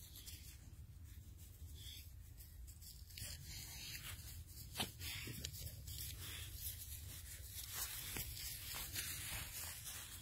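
Faint rustles and soft crunches on frosty grass over a steady low rumble, with a few short taps around the middle.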